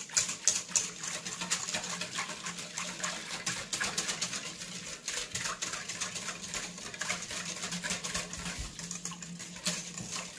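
Wire whisk beating a thin liquid mixture in a stainless steel bowl: rapid, steady clicking of the wires against the metal with a wet swishing.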